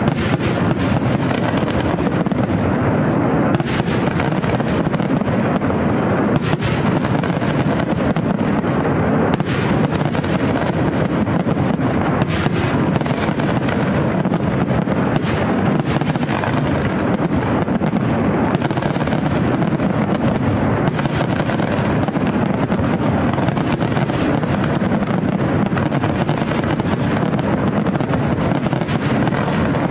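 Fireworks display: aerial shells bursting in a continuous barrage, many bangs and crackles overlapping without a break.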